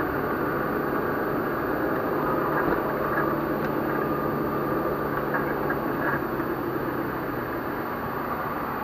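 Steady engine and road noise of a car driving, heard from inside its cabin; a low hum in it stops near the end.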